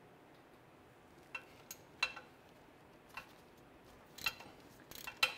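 Ratchet and 15 mm socket turning out a loosened oil drain plug: about half a dozen separate sharp metallic clicks, irregularly spaced, starting a little over a second in.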